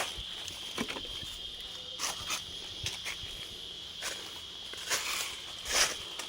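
Footsteps on an outdoor path, an uneven step or scuff every half-second to a second, over a steady high-pitched drone of insects.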